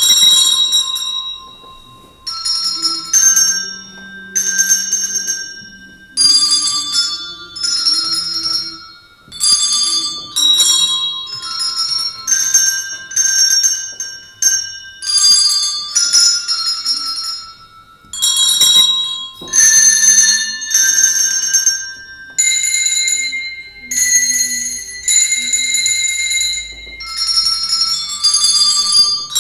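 Handbell choir playing a hymn tune: chords of hand-held bells rung together about once a second, each ringing out and fading before the next.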